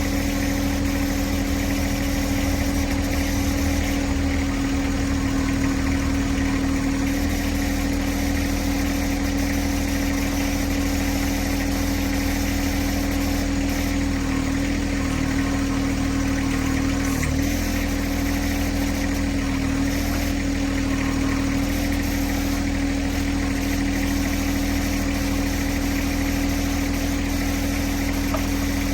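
John Deere 1026R compact tractor's three-cylinder diesel engine idling steadily, with a brief dip in pitch about halfway through.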